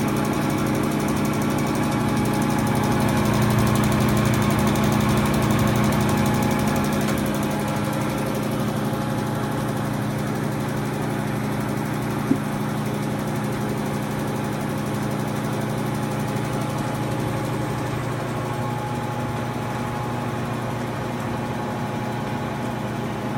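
1962 Blanchard 18-36 rotary surface grinder running, its magnetic chuck turning: a steady electric machine hum with strong low tones. One short click about twelve seconds in.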